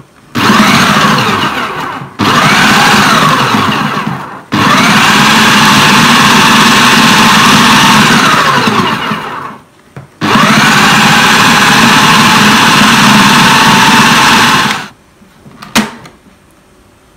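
Idealife IL-222 electric food processor's 800 W motor run on pulse, chopping raw beef. It gives four bursts: two short ones of about two seconds each, then two of about five seconds each, with the pitch sliding down as each burst is released. A single click follows after the motor stops.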